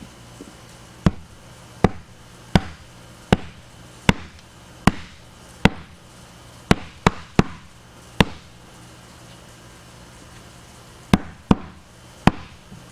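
Rubber mallet knocking a wooden shelf down onto dowels in a side panel: a steady run of about a dozen sharp knocks, roughly one every three-quarters of a second, then a pause and three more near the end.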